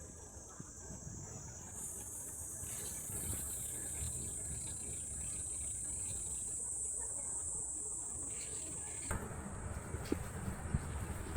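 Insects shrilling steadily in a continuous high-pitched chorus over a low rumble. About nine seconds in, broader noise with scattered clicks joins it.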